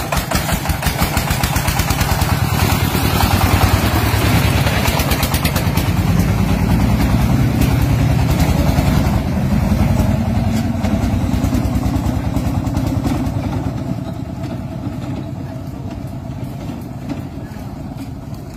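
Dompeng single-cylinder diesel engine running with a fast, even chugging pulse, growing louder in the first few seconds and fading gradually over the last several seconds.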